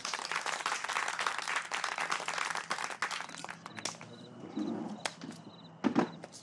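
Applause from a small group, dense at first and thinning out after about three seconds into a few single claps.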